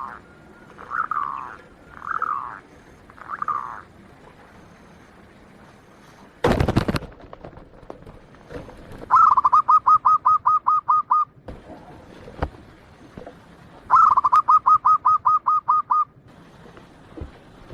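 Zebra dove (perkutut) cooing. It gives a few drawn-out falling coos, then twice a fast run of short, even coo notes, about seven a second for some two seconds each. A brief loud rustling burst comes about six and a half seconds in.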